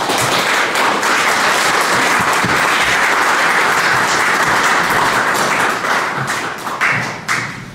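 Audience applauding, a dense steady clapping that thins out after about six seconds into a few last separate claps.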